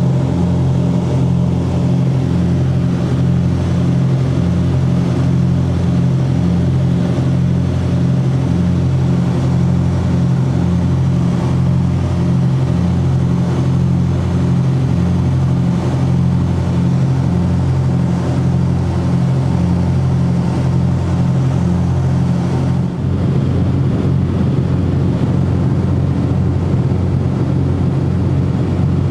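The twin piston engines of a Cessna 404 Titan, turbocharged flat-sixes, running steadily with a deep even drone and a slow regular pulsing, the note shifting slightly about three-quarters of the way through.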